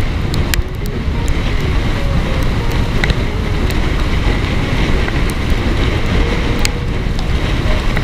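Wind buffeting the microphone while riding, a steady low rumble with scattered sharp clicks and rattles.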